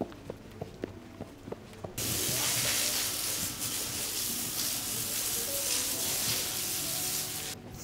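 Garden hose with a spray-gun nozzle hissing as it sprays water onto a horse's legs and the wet floor during a wash-down. The spray starts suddenly about two seconds in and cuts off suddenly just before the end. Before it come a few light hoof steps.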